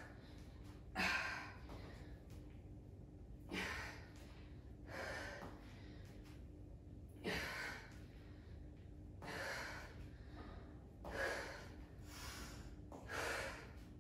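A woman breathing hard from exertion during a fast lunge-and-kick exercise: about eight heavy breaths, one every second or two.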